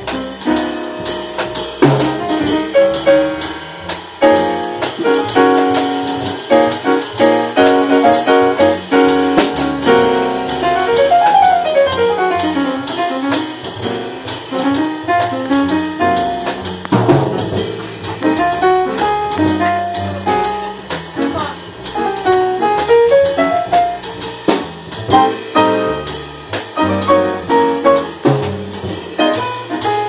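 Live small-group jazz: saxophone playing with upright piano and double bass, with quick melodic runs that fall and rise in pitch.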